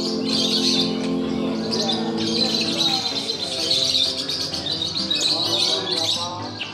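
Many caged songbirds singing at once: a dense, continuous chatter of high chirps and trills. For about the first second and a half, a low steady tone of voices or music sits underneath.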